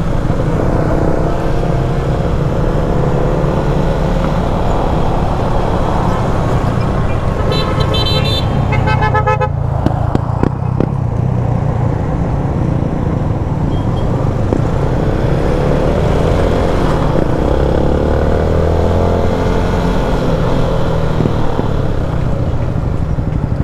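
Yamaha scooter's engine running under way with road and wind noise, its note rising and falling with the throttle. About eight seconds in, a vehicle horn sounds in a rapid string of short toots lasting about two seconds.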